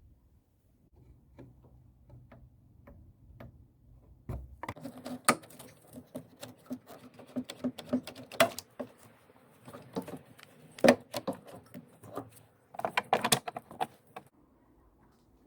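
Irregular mechanical clicks and knocks, like tools or parts being handled: a few scattered clicks at first, then a busy stretch of clattering from about five seconds in that stops near the end.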